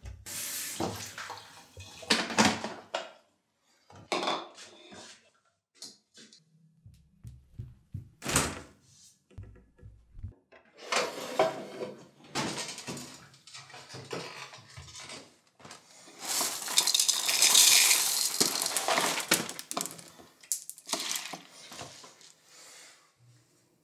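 Kitchen breakfast sounds: bowls, dishes and cutlery clattering and knocking in separate bursts. About two-thirds of the way through, a few seconds of steady pouring, the loudest part.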